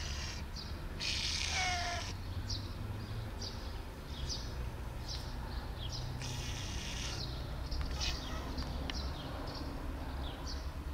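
A cat meowing: one falling meow about a second in and a shorter, breathier one around six seconds in, with brief high chirps scattered between them over a low steady background rumble.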